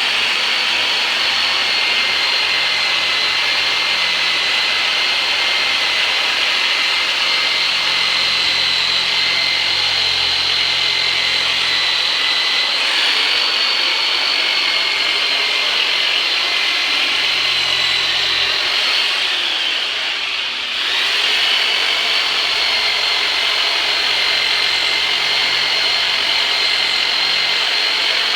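A chiropractor's 'turbinator', a handheld electric deep-massage tool loud enough that patients wear earplugs, running continuously with a high, steady motor whine. About two-thirds of the way through the whine sags briefly, then comes back up.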